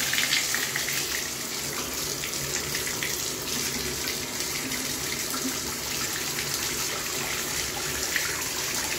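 Bathtub spout running steadily, water pouring into the tub and splashing toward the drain as the drain is flow-tested after hair was cleared from it.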